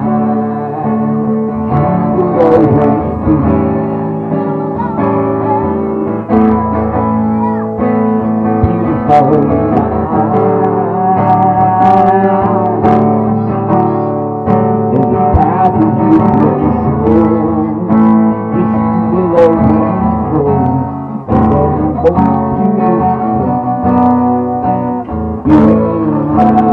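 Acoustic guitar played live, strumming the chords of a song.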